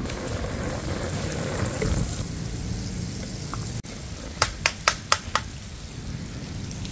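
Butter melting and sizzling in a hot wok on a portable gas stove, with about five quick sharp taps of a metal spoon knocking butter off a little past the middle.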